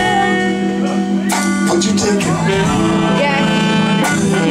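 Live soul band music with drum hits and held chords, and a male singer's voice over it.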